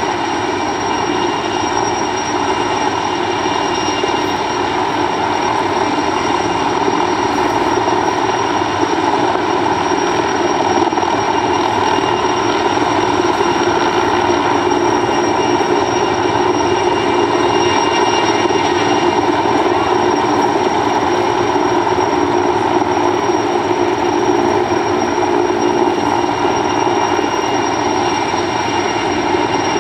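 Sikorsky S-64 Skycrane helicopter hovering together with a smaller helicopter: a loud, steady rotor and engine drone with a steady high whine over it.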